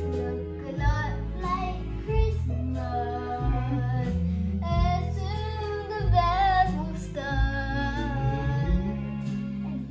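A young girl singing along to a Christmas karaoke backing track, her voice over a steady bass accompaniment.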